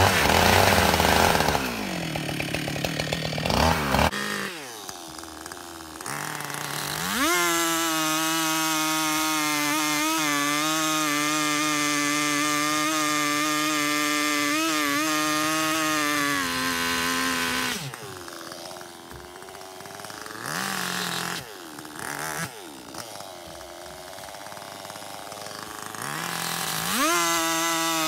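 Two-stroke chainsaw dropping from full throttle to idle in the first seconds, revving up about seven seconds in and holding steady at full throttle for about ten seconds, then falling back to idle with a couple of short blips before revving up again near the end.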